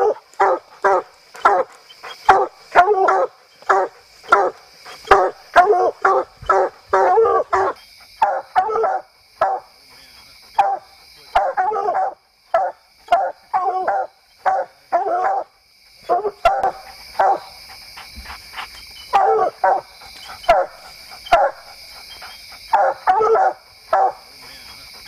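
Two coonhounds barking treed at the foot of a tree, the hunting dogs' signal that they have the raccoon up it. The barks come fast, two or three a second, for about the first half, then more spaced and irregular.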